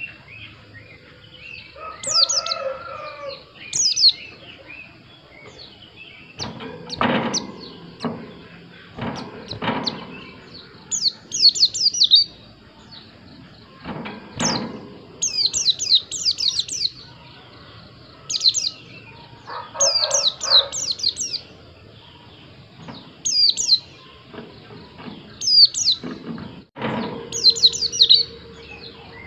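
White-eye (pleci) singing in short bursts of rapid, high twittering notes every second or two, with a few dull knocks in between.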